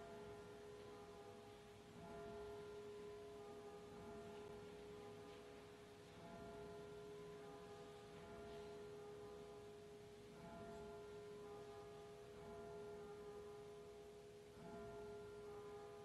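Faint, slow instrumental music: one steady held low note runs throughout, with soft higher notes above it that change every couple of seconds.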